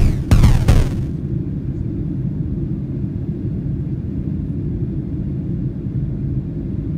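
Steady low rumble of jet airliner cabin noise in flight. A music track ends with a falling sweep in the first second.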